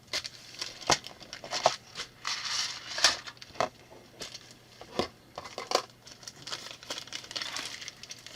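Plastic building bricks being handled: scattered sharp clicks and clatters of bricks, with crinkling of plastic parts bags between them.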